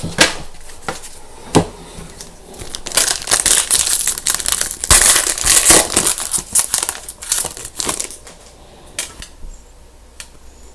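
Foil wrapper of a trading-card pack crinkling as it is torn open and handled, with a dense burst of crackling in the middle and a few sharp clicks around it.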